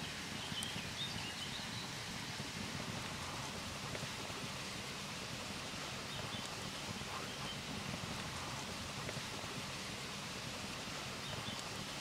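Steady outdoor ambience: a low wind rumble and rustling, with a few faint high chirps now and then.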